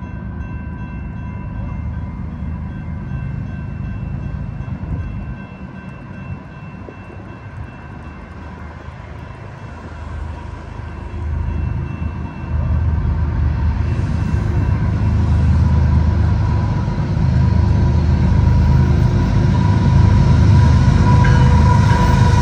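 Diesel locomotives of an empty BNSF coal train approaching, their low engine rumble swelling suddenly about halfway through and growing louder toward the end. Faint steady high tones sit underneath throughout.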